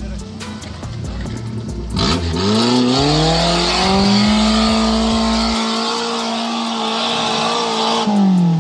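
Suzuki Samurai's Suzuki Swift engine revving up hard about two seconds in, its pitch rising quickly and then held high and steady under load on a steep climb, before dropping away near the end.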